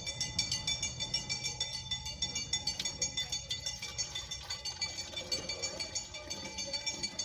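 Music with a quick, steady beat.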